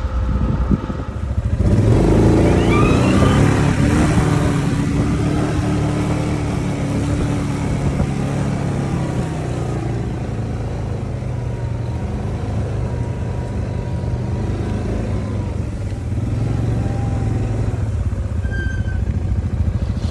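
Quad bike engine revving up about a second and a half in, then running on under throttle with its pitch rising and falling.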